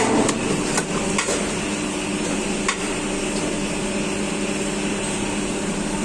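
Plastic injection moulding machine running with a steady hum, with about five sharp knocks in the first three seconds.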